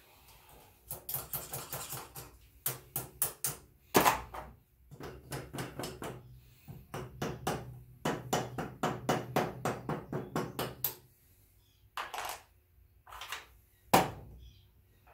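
Rapid metal-on-metal tapping and clicking from hand tools on an NP231 transfer case, in runs of quick strikes with louder single knocks about four seconds in and near the end, as a retaining ring is worked off.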